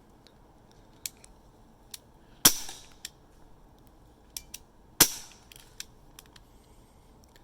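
Colt M1911 CO2 non-blowback airsoft pistol firing two shots about two and a half seconds apart, each a sharp pop with a short tail, with a few faint clicks between them.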